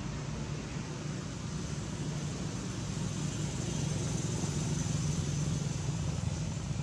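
Steady low rumble of a motor vehicle on a nearby road, growing a little louder around the middle as it passes.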